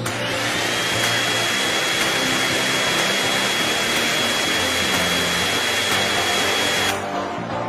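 A steady whirring, rushing machine noise with a thin high whine, like a small motor, over background music. It cuts off about seven seconds in.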